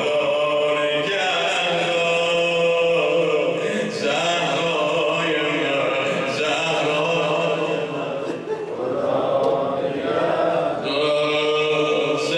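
A man's voice chanting a Persian mourning elegy (maddahi/noheh) in long held phrases that slide in pitch, with short breaks between phrases.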